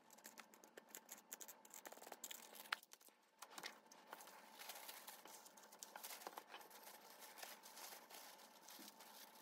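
Faint handling sounds of packing a clear plastic phone case: small sharp clicks and taps as the case and its film are handled, then steadier rustling and crinkling of thin wrapping paper as the case is folded into it.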